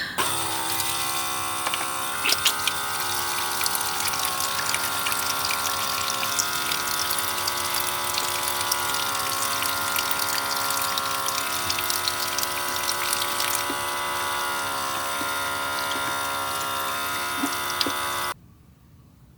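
Van sink's electric water pump whining steadily while tap water runs for hand washing; both cut off suddenly near the end.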